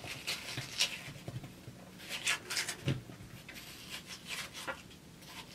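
A metal spoon scraping scored watermelon cubes off the rind into a plastic bowl: a series of short, irregular scrapes.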